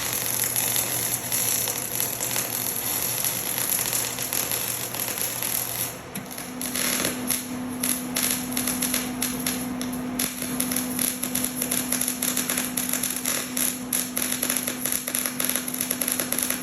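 Welding arc crackling in rapid, irregular pops over a steady low hum, starting about six seconds in after a stretch of steady hissing noise.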